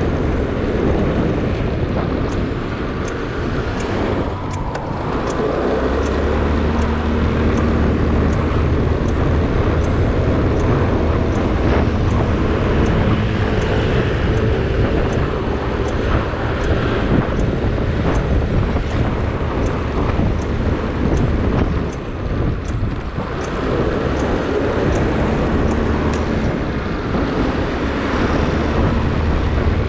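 Motorcycle engine running at road speed as it travels, its note easing off briefly a couple of times and steadying again, with wind rushing over the microphone.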